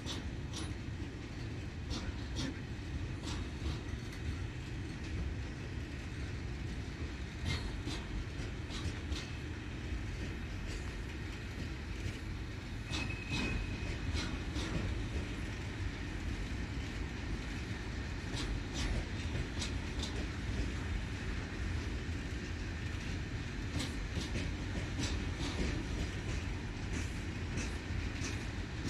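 Loaded freight flat wagons rolling slowly past, with a low rumble and the wheels clicking irregularly over rail joints. A brief high wheel squeal sounds once, midway.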